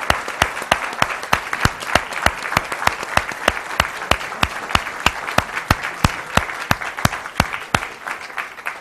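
Audience applause filling an auditorium, with one close pair of hands clapping sharply and evenly about four times a second over the crowd. The applause starts to die away near the end.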